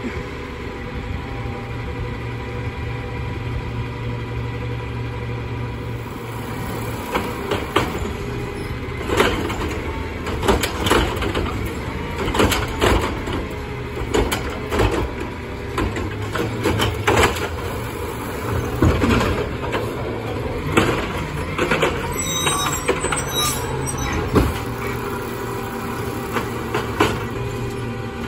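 Peterbilt 520 garbage truck's engine running steadily while its automated side-loader arm lifts a recycling cart and dumps it. From about seven seconds in, a long run of knocks and clatters as the cart is shaken and recycling tumbles into the hopper.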